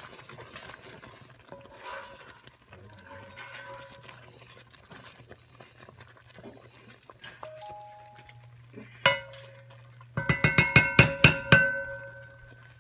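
Wooden spoon stirring thick, boiling coconut fudge in a cast-aluminium pot over a steady low hum. About nine seconds in the spoon knocks the pot once, then raps it quickly about a dozen times, and the pot rings after the knocks.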